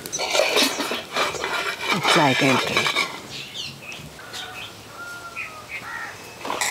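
A metal spatula scrapes and clinks against a clay odu pan as a cooked odupale is lifted out. Birds chirp in the background, with short whistled chirps later on.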